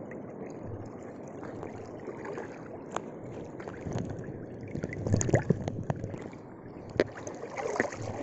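Shallow seawater washing and splashing around someone wading among rocks, busier for a moment about five seconds in, with a sharp knock about three seconds in and another near the end.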